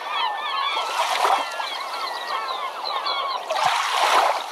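A flock of birds calling, many short overlapping calls, with two bursts of rushing noise, one about a second in and a louder one near the end with a brief low thud.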